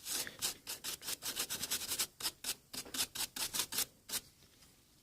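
Medium-bristle brush scrubbing isopropyl alcohol over the soldered pads of a drone flight controller board to clear leftover flux: quick back-and-forth strokes, several a second, that stop about four seconds in.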